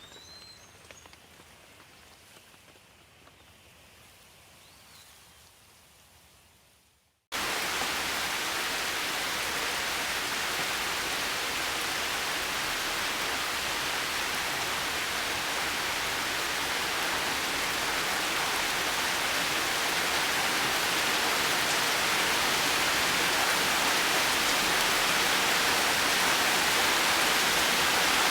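Faint outdoor ambience with a few short bird chirps fades out. About seven seconds in, heavy rain cuts in abruptly as a dense, steady hiss and grows slightly louder.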